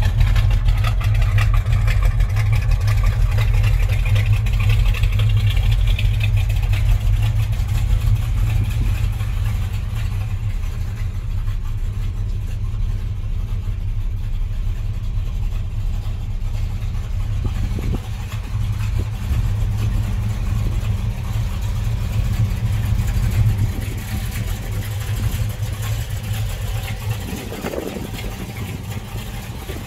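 1972 Chevrolet El Camino's V8 running at idle while parked, a steady low exhaust rumble. It eases off slightly near the end.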